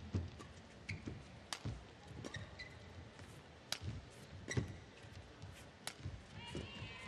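Badminton rally: sharp smacks of rackets striking the shuttlecock, roughly once a second, with thuds of footsteps and brief squeaks of court shoes on the mat.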